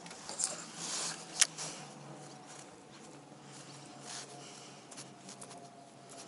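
Shimano Calcutta Conquest DC 200 baitcasting reel being wound in to retrieve a lure, with a faint steady hum and scattered small ticks. There are a few sharp clicks in the first second and a half, the loudest about a second and a half in.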